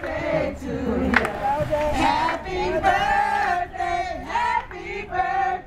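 A group of voices singing together, with long held notes and a crowd joining in.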